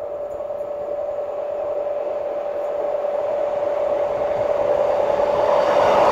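Self-propelled rail track maintenance machine approaching on the line, its running noise and a steady high hum growing steadily louder as it nears.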